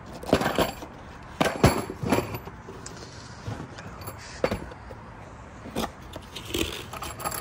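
A cardboard box of FastenMaster HeadLOK 6-inch steel lag screws being handled and opened. The screws shift and clink against each other in short sharp clatters, several in the first two seconds and more near the end, with the cardboard rubbing and flapping.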